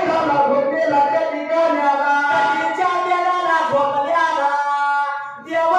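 Men singing a Dhangar ovi devotional song in long, held melodic lines. One long note fades out about five seconds in, and the singing picks up again just before the end.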